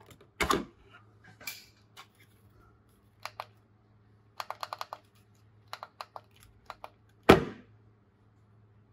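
Plastic clicks of an Enchen Boost hair trimmer's power button being pressed again and again and the trimmer being handled, with a quick run of clicks around the middle and a louder knock as it is set down about seven seconds in. No motor sound follows the presses: the broken trimmer does not start.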